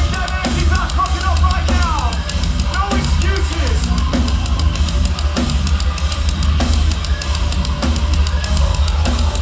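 Metalcore band playing live and loud: a drum kit drives it with rapid bass-drum hits, snare and cymbals under the full band. Bending pitched lines sound during the first two seconds.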